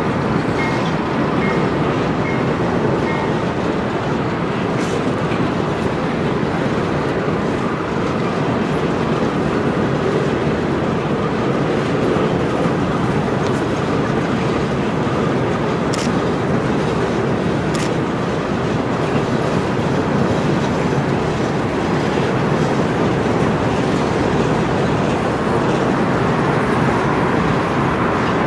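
Empty coal cars of a freight train rolling past at a steady speed: a continuous noise of steel wheels running on the rails.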